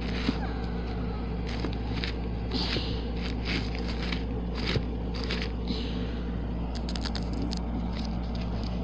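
Irregular scratchy rustling and clicking as a sequined backpack is handled and its sequins are brushed close to the microphone, over a steady low hum.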